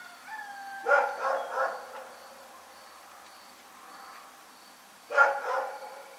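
Dog barking at night: three quick barks about a second in, led in by a brief whine, then two more barks near the end.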